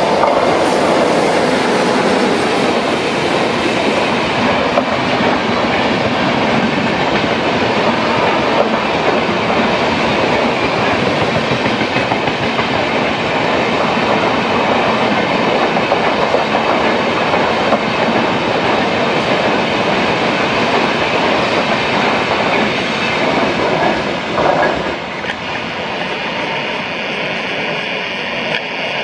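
Indian Railways Shatabdi Express passing at speed behind an electric locomotive, followed by a long rake of LHB coaches. Their wheels on the rails make a loud, steady rush that drops in level near the end as the last coach draws away.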